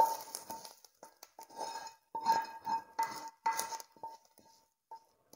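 A steel frying pan and spoon clinking and scraping as a fried tempering is emptied into a pressure cooker of dal khichdi. The pan rings after each knock, in a quick uneven run that thins out after about four seconds, with one last knock near the end.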